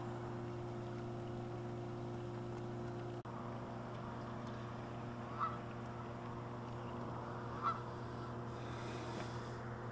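Geese honking: two short single honks a couple of seconds apart, over a steady low hum.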